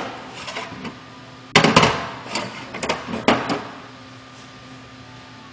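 Knocks and clatters from handling the Jet wet sharpener's accessory drawers and the accessories in them. A few sharp knocks come about a second and a half in, then smaller clicks and one more knock a little after three seconds.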